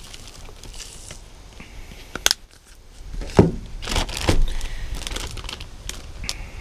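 Zip-top plastic bag of carp bait crinkling and rustling as hands handle it, with scattered sharp clicks and crackles, the loudest about three and a half seconds in.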